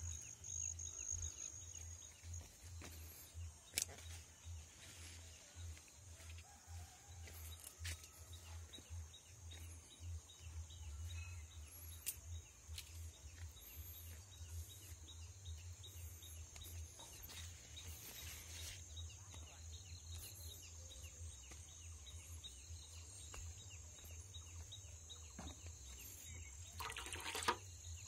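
Faint garden ambience. A steady high-pitched buzz runs under a low wind rumble on the phone's microphone. A few sharp handling clicks come through, with the loudest knock about four seconds in and a burst of rustling near the end.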